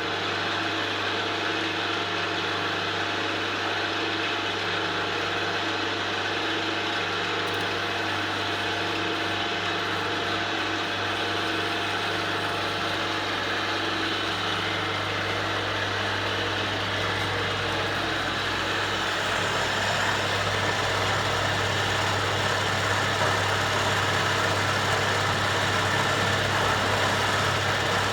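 Small milling machine running steadily as it mills, with an old battery drill driving the table feed at slow speed through bicycle sprockets and chain. It switches on suddenly at the start and gets a little louder about two-thirds of the way through.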